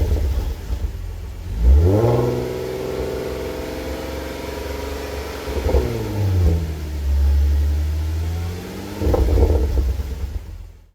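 Audi S4's supercharged 3.0-litre V6 through an HG Motorsport 2.5-inch cat-back exhaust with stock cats. The revs rise about two seconds in and hold, then drop off the throttle around six seconds with a few crackles, settle into a low drone, and blip again near the end with more crackling. The burbles come from the exhaust itself, not from a burble tune.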